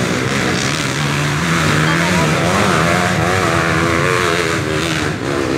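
Several dirt-bike engines running and revving unevenly, with a crowd's voices underneath.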